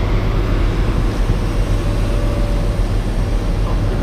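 An engine running steadily with an even, low drone.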